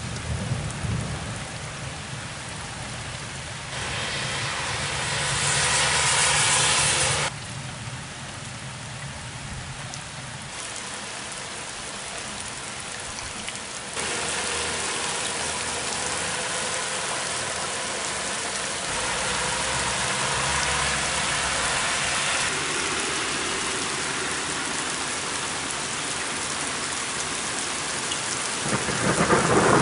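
Rain falling steadily, a hiss whose level jumps abruptly a few times, with a low rumble of thunder in the first few seconds. Near the end a louder thunder rumble begins to build.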